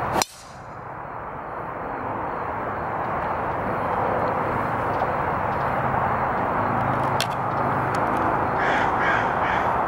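Sharp crack of a driver striking a golf ball off the tee, followed by a steady outdoor hiss. A second, fainter club strike comes about seven seconds in, and crows caw a few times near the end.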